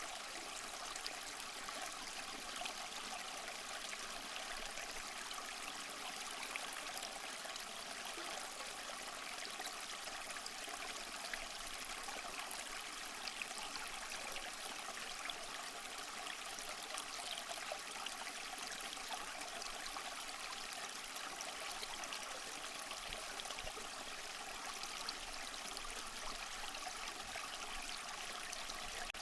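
Small mossy waterfall: water splashing and trickling over rocks in a steady, even rush, with small splashes flecked through it.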